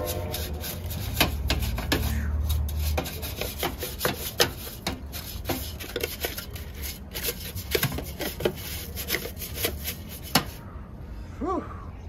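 Stiff bristle hand brush scrubbing and flicking caked cigarette dust off an old Lasko 3733 box fan's housing and blades, in quick, irregular strokes that stop near the end.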